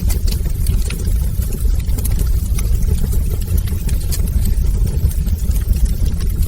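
Wood fire burning in a fireplace: a steady low rumble of the flames with scattered small crackles and pops.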